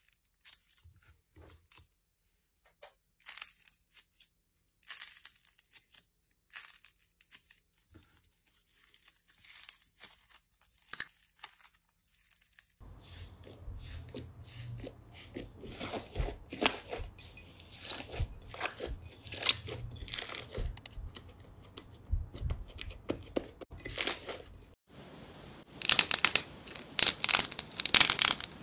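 Slime and squishy toys squeezed and kneaded by hand. At first there are sparse sticky clicks. From about halfway the crackling gets denser, with a low hum behind it, and it is loudest and thickest near the end as slime-filled balls are crushed.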